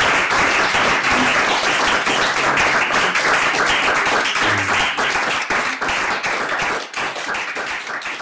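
Audience applauding, the clapping thinning into scattered separate claps and fading near the end.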